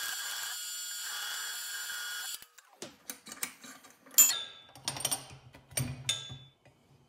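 Drill press drilling out the hard steel retaining pin of a turbocharger wastegate bushing: the motor runs with a steady whine for about two seconds, then stops. It is followed by a run of sharp, irregular metallic clicks and scrapes, the loudest about four seconds in, over a low hum.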